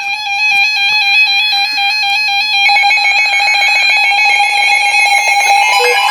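Several NOAA weather radio receivers sounding their alert alarms at once: loud, rapid electronic beeping. A second, faster beeping joins about two and a half seconds in.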